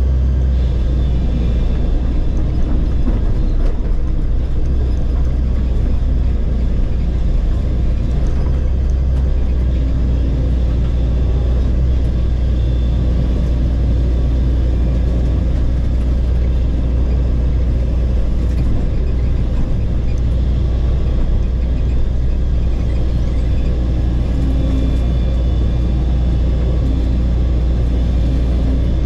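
Bulldozer's diesel engine running steadily, heard from inside the cab as a low, even drone.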